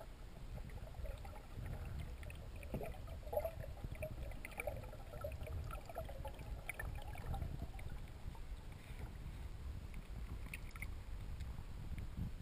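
Muffled water noise around an underwater camera held beside a kayak: a steady low rumble with gurgling and scattered small clicks.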